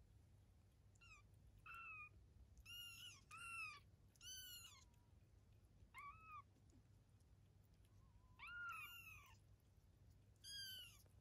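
Kittens about three weeks old mewing: around eight short, high-pitched mews, each rising then falling in pitch, two of them overlapping near the end.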